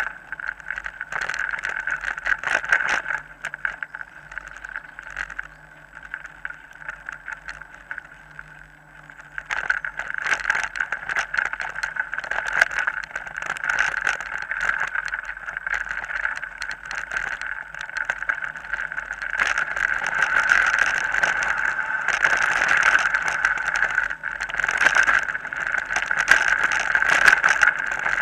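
Mountain bike ridden along a dirt forest trail: steady riding noise with the bike rattling and knocking over bumps. It is quieter for a few seconds from about four seconds in, then louder again from about ten seconds.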